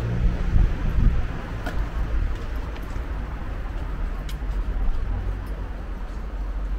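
City street ambience: a steady low rumble of traffic, a little louder in the first second, with a few faint clicks over it.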